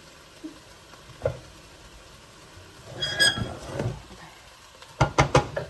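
A utensil scraping and knocking against a frying pan over a faint sizzle, with a squeaky scrape about three seconds in and a quick run of clicks near the end. The egg is sticking to a pan cooked without butter.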